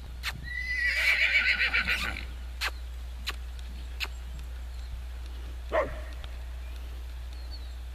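A horse whinnies once, a loud high call that starts with a short rising note about half a second in and shakes rapidly for about a second and a half before dying away.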